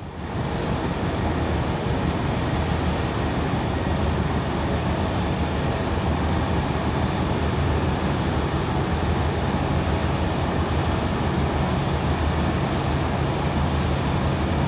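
A ship's diesel engine running at a steady pitch, a constant low hum under a steady rush of water and wind noise.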